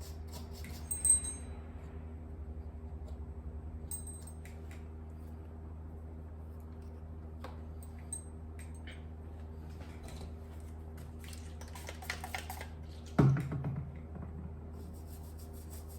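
Small clicks and light scratches of handling a small circuit board and tools on a workbench, over a steady low hum, with a louder bump about thirteen seconds in.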